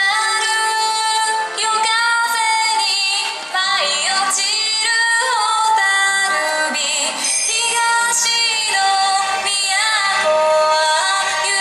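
Yosakoi dance song played over the sound system, a woman's voice singing the melody over the band track.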